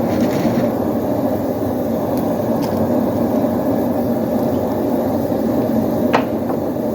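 A blacksmith's forge running with a steady, loud rushing noise, and a single sharp click about six seconds in.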